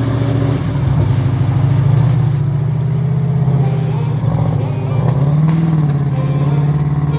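Off-road 4x4's engine running steadily under load, its revs lifting briefly about five and a half seconds in.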